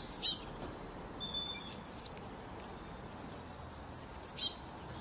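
Small bird chirping: short, high, quickly falling notes in little clusters at the start, about two seconds in, and four or five in a row near the end, over a faint steady hiss.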